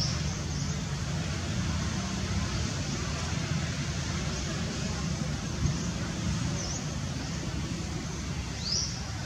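Steady outdoor background rumble with a few short, high sweeping chirps, the clearest near the end.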